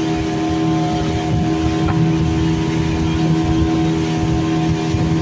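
Speedboat engine running steadily at speed, a constant drone under the rush of water and wind past the hull.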